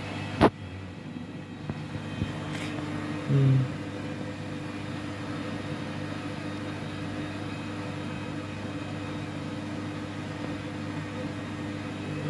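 Washing machine running partway through its cycle with a steady mechanical hum. A sharp click comes about half a second in, and a short, louder hum lasts about a third of a second roughly three seconds in.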